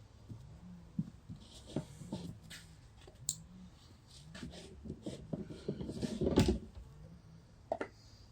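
Scattered light knocks and clicks of hands working on the Barco H-6 jackhammer while it is primed with gasoline, with one louder thump about six seconds in.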